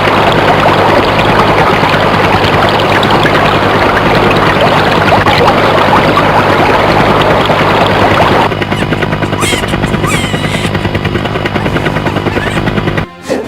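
Loud, steady engine-like drone with a constant low hum underneath. The sound thins out about eight and a half seconds in and cuts off sharply near the end.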